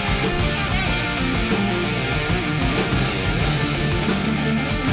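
Rock music with electric guitar and a steady drum beat.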